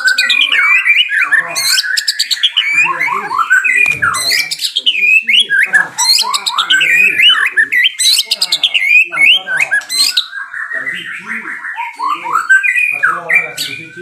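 Songbird singing: a fast, unbroken stream of varied whistles, chirps and warbled trills sliding up and down in pitch.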